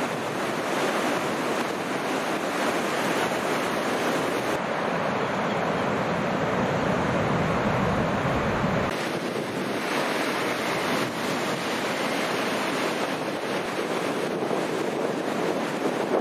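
Ocean surf breaking and washing in, with wind on the microphone. The sound shifts at cuts about four and a half and nine seconds in; the middle stretch is deeper.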